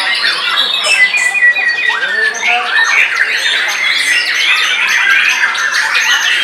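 White-rumped shamas (murai batu) singing in a contest line-up: a dense, unbroken stream of fast whistles, trills and chattering notes from several caged birds at once. About a second in, a quick run of evenly repeated notes stands out.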